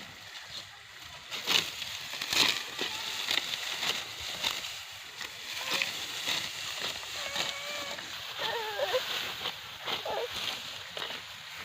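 Dry wheat stalks rustling and crackling as they are cut and handled during harvest, with irregular sharp crackles, loudest about two seconds in.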